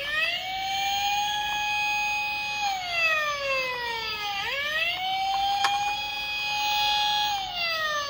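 Wailing police-style siren. The pitch rises, holds steady for a couple of seconds, then falls, twice over, with a single click in the middle.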